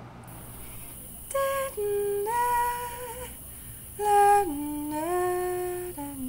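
A slow, wordless vocal melody in two short phrases of held notes, sliding up between some of them.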